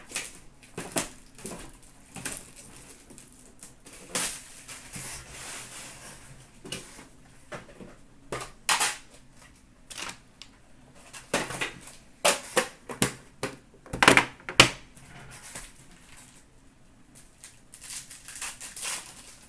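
A metal trading-card tin being opened and handled: irregular sharp clicks and knocks, the loudest clustered about twelve to fifteen seconds in. Crinkling of a foil card-pack wrapper being torn open runs between them.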